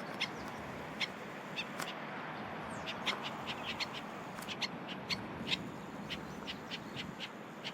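Birds giving short, irregular chirps and chips, a few every second, over a steady outdoor hiss.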